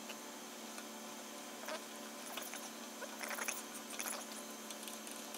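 Helicoil tap being turned by hand, cutting threads into soft aluminum, giving faint, scattered short squeaks as the tap bites and is worked back and forth.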